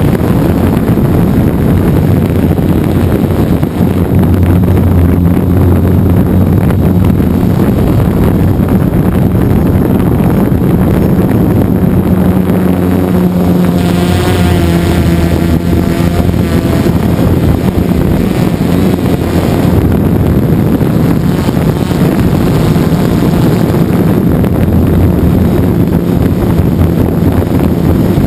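DJI Phantom 2 quadcopter's electric motors and propellers droning steadily, heard from the GoPro riding on the drone, with wind noise on the microphone. About halfway through, the motor pitch shifts as the drone tilts into a turn.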